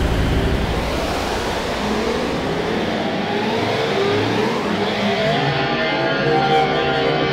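Gesture-controlled electronic sound run through a Kyma delay mixer, its pitch gliding upward as the delay time is swept, then thickening into a dense held cluster of tones near the end.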